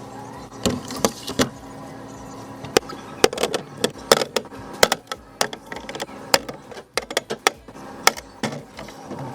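Irregular clinks, knocks and clatter of food containers and jars being handled and set down while a refrigerator is emptied, over a steady low hum.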